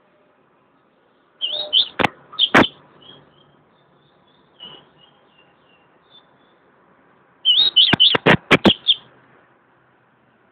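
Caged double-collared seedeater (coleiro) giving short, high chirps, with two louder bouts of chirping, about a second and a half in and again near eight seconds. The bouts are mixed with sharp clicks and wing flutters as the bird moves about in its cage.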